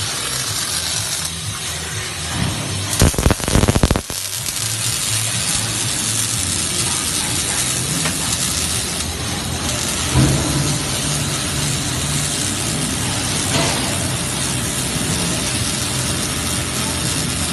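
Robotic welding arc crackling and hissing steadily while it welds a steel hand pallet truck chassis, with a louder, harsher burst of crackling about three seconds in.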